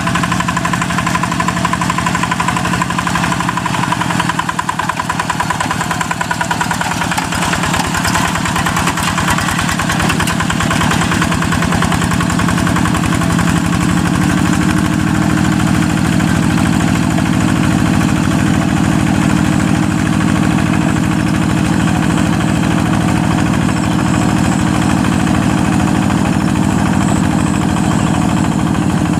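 Single-cylinder Yanmar diesel engine on a G1000 two-wheel hand tractor, running steadily under load as it pulls a moldboard plough through soft, wet paddy soil. The engine note dips briefly about five seconds in.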